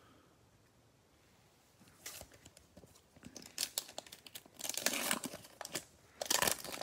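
Plastic foil wrapper of a Prizm football card pack being torn open and crinkled by gloved hands. Scattered crackles start about two seconds in and grow into dense crinkling near the end.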